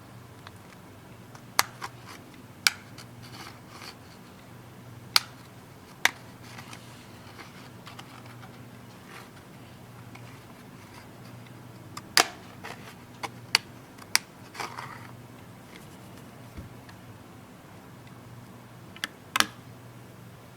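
About a dozen sharp plastic clicks, singly and in small clusters, as the clips holding a Samsung Galaxy Tab 3 tablet's back housing snap loose while it is pried off, over a low steady hum.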